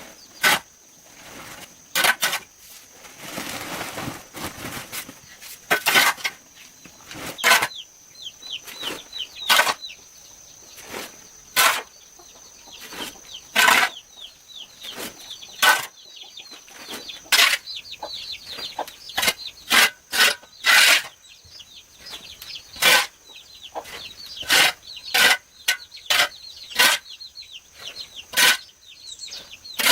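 Birds calling in many short falling chirps, with sharp clicks or knocks every second or two.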